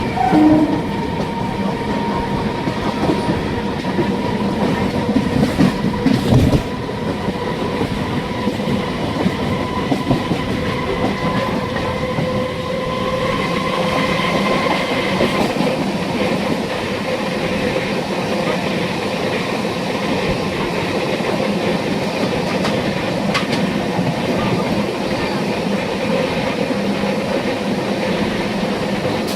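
MEMU electric multiple-unit train running along the track: a steady whine from its electric traction equipment over the rumble and clickety-clack of the wheels on the rails.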